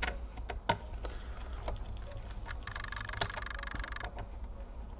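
Light clicks and taps of small-parts work inside an open laptop: Wi-Fi card antenna cables being unclipped and a screw being worked. A rasping buzz lasts about a second and a half near the middle.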